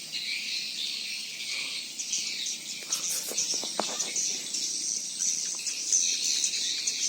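Many small birds chirping in a dense, high-pitched chorus, with a few faint clicks about three to four seconds in.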